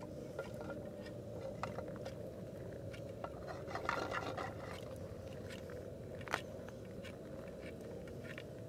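Campfire crackling: irregular snaps and pops over a steady background hiss, with a denser patch about four seconds in and the sharpest pop about six seconds in.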